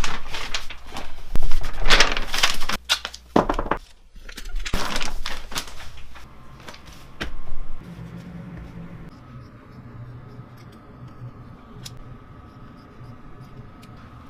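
A large leather hide being handled and slid across a wooden workbench: loud, irregular rustling and scraping in bursts over the first several seconds. After that it is quieter handling with a faint steady hum.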